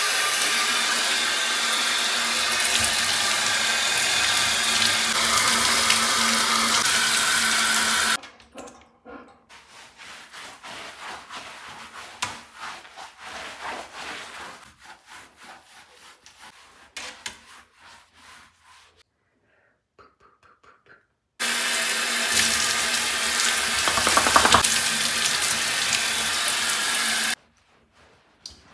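Bathtub faucet running hard, water pouring into a plastic container, for about eight seconds. Then a bath brush scrubs a dog's wet coat in quick repeated strokes, the faucet runs again for about six seconds, and a towel rubs the coat near the end.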